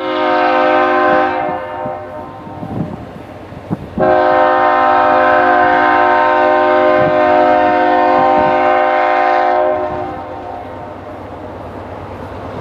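Freight locomotive's air horn sounding a chord of several steady notes: a short blast at the start, then one long blast of about six seconds from about four seconds in. Between and after the blasts, the rumble and wheel clicks of the approaching train.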